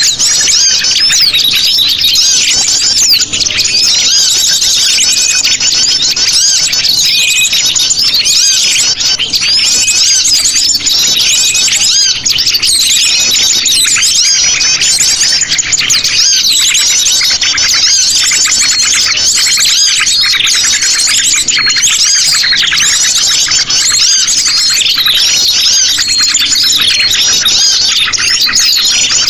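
A lure recording of sogon birds calling noisily: a dense, unbroken chatter of many rapid high chirps and trills.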